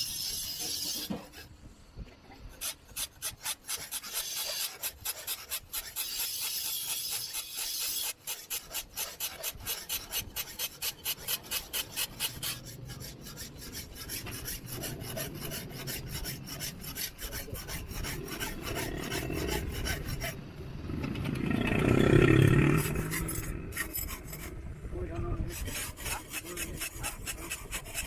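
A hand file rasping on a steel sickle blade in quick, even back-and-forth strokes. A louder, deeper sound swells up about three quarters of the way through.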